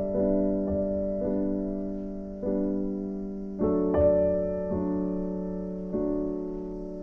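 Background music: slow, gentle solo piano, notes and chords struck every half second to a second and a half and left to ring out.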